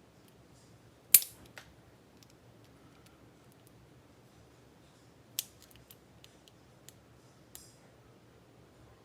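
Sharp metal clicks and snaps of hand tools working on a Kwikset lock cylinder as it is taken apart: a loud snap about a second in, another about five seconds in, and scattered lighter ticks between.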